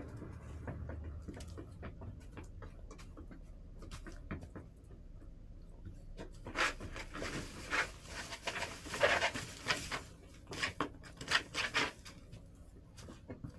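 Hens pecking and scratching about the coop: a run of irregular sharp taps and scuffs, sparse at first and thickening in the second half.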